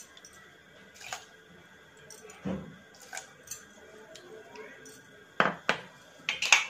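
A few light clinks and knocks of a plastic measuring spoon against a glass jar and bowl as hot water is spooned out and poured, with sharper knocks in the last couple of seconds as the jar is set back down.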